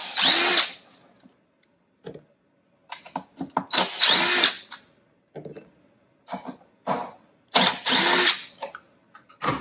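Cordless driver with a Torx bit backing out the screws that hold on a backpack blower's recoil starter. It runs in three short bursts, each with a motor whine that rises and falls, with light clicks of the bit and screws in between.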